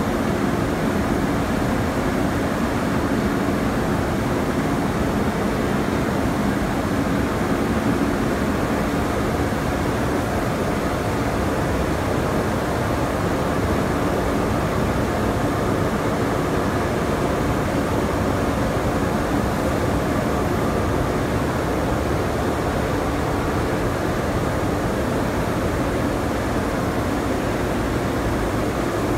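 Heliot KNITDRY four-chamber tensionless relax dryer running: a steady drone from its air-circulation fans and conveyor, with a faint low hum in it.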